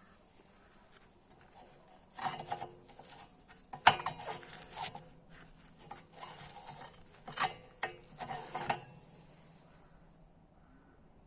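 Scraping and rubbing on the rocket stove's steel in a run of short, uneven strokes, with one sharp knock among them.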